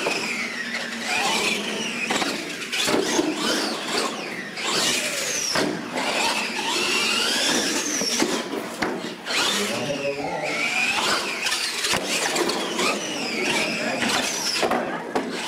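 Radio-controlled monster trucks' electric motors whining, the pitch rising and falling again and again with the throttle, with short knocks of the trucks hitting ramps and landing.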